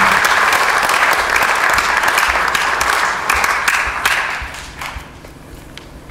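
Audience applauding, the clapping dying away about four to five seconds in to a few scattered last claps.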